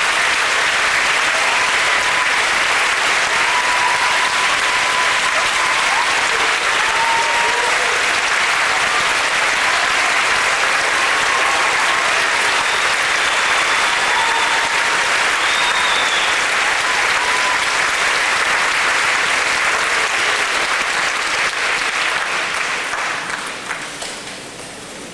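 Large audience applauding steadily, then dying away over the last few seconds.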